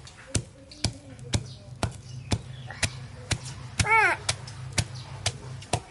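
Pestle pounding food in a mortar: steady dull thuds, about two strokes a second. A short, high squeal cuts in about four seconds in.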